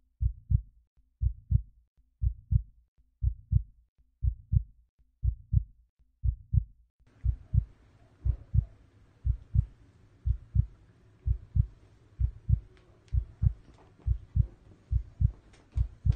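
Heartbeat sound track: steady double thumps, lub-dub, about once a second. From about seven seconds in, a faint background hiss and a few faint clicks join underneath.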